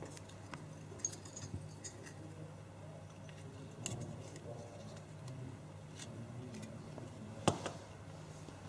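Faint clicks and taps of small circuit boards being handled, as the CircuitCo Audio Booster Pack's header pins are pressed onto the TI Tiva TM4C123 Launchpad. A sharper tap comes near the end, over a low steady hum.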